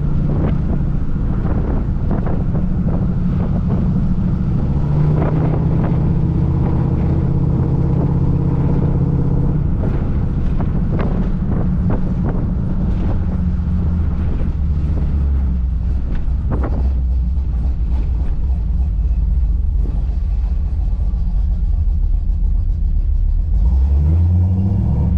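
Car engine idling through a freshly built custom exhaust, a low steady rumble whose pitch shifts slightly now and then. Near the end it revs up briefly.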